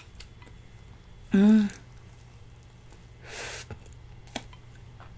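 A short hummed vocal sound with a falling pitch about a second in, then a breathy exhale or sniff about two seconds later, with a faint click or two from eating.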